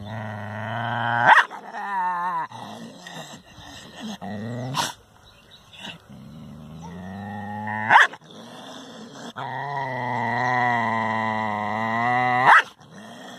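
Dog growling in long, drawn-out stretches with a wavering pitch, broken by several sharp clicks or abrupt cuts.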